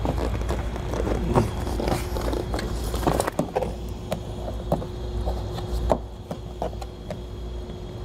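Plastic interior trim panel being handled and pressed into place: plastic scraping and rubbing, with a series of short sharp clicks and knocks as its retaining clips pop in. A steady low hum runs underneath.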